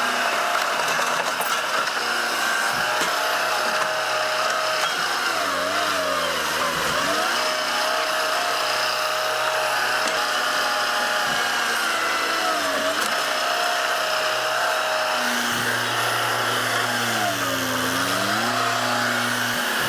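A machine's engine runs steadily, its pitch sagging and then recovering a few times as it comes under load.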